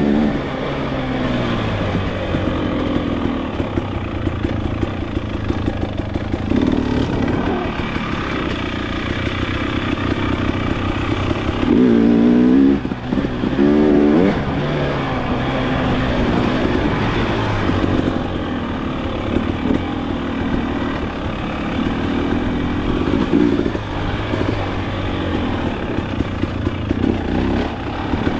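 2023 Husqvarna TX300 two-stroke dirt bike engine running under load, pitch rising and falling with the throttle, with two sharp revs near the middle.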